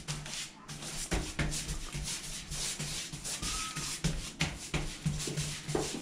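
Wallpaper paste brush swept back and forth over wet lining paper on a pasting table: a run of irregular rubbing, swishing strokes as the paste is spread.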